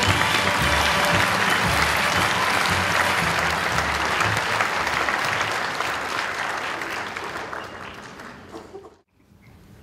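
Audience applauding, fading over the last few seconds and cutting off abruptly about nine seconds in.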